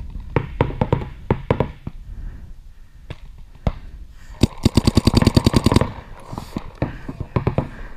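Paintball markers firing. Scattered single shots come first, then a rapid string of about a dozen shots a second for a second and a half, then a few more scattered shots near the end.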